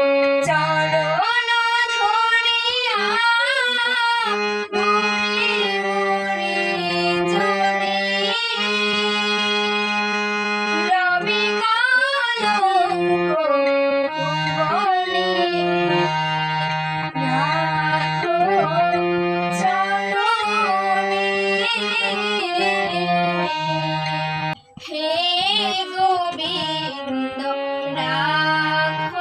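Music of a Bengali devotional song: steady held chords under a wavering melodic line that sounds sung, with a short break about 25 seconds in.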